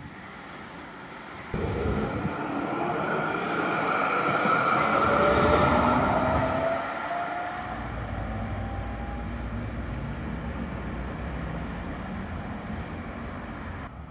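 NGT8D low-floor articulated tram running on street track: wheel-on-rail noise with a whine from its three-phase traction drive that slowly rises in pitch as it gathers speed, loudest about five seconds in. From about eight seconds a steadier low rumble takes over.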